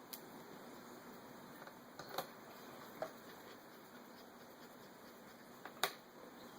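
A few sharp little clicks and taps, four or five spread out with the loudest near the end, from a small screwdriver and screws as the screen bezel's corner screws go back in.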